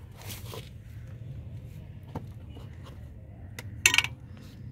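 Hands handling dry, split coriander seeds: a soft rustle just after the start and a short, loud scrape of seeds and skin a little before the end, over a steady low hum.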